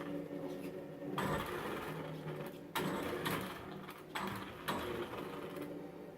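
Traxxas Slash RC truck's on-board audio unit playing a simulated engine sound: a steady idle drone, with sharp revs about a second in, near the middle and twice more later as the throttle is worked.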